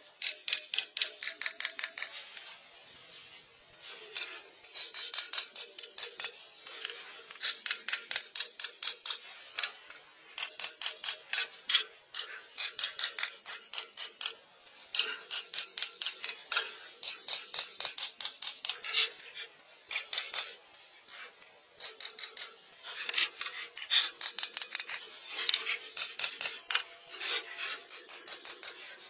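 A pen scratching quickly back and forth on sketchbook paper while colouring in, in rapid strokes several a second. The strokes come in runs of a second or two with short pauses between them.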